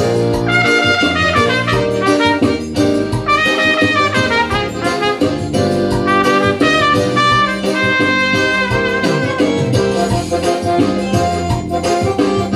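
Trumpet playing the melody of a forró song over a recorded backing track; the trumpet stops near the end while the backing music carries on.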